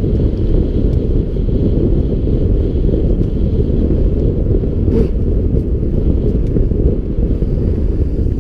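Loud wind rush on the microphone of a mountain bike ridden fast along a dirt forest singletrack, with tyre rumble, small rattling clicks, and a sharp knock about five seconds in.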